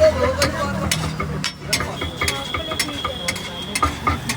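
Metal spatula striking and scraping on a large iron tawa in quick, irregular clicks while pulao is stirred and tossed.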